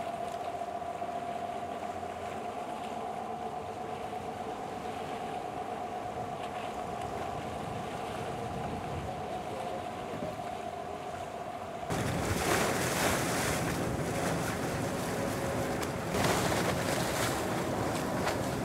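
Boat at sea: a steady motor hum over rushing water. About two-thirds of the way through it changes abruptly to louder wind buffeting the microphone and waves splashing.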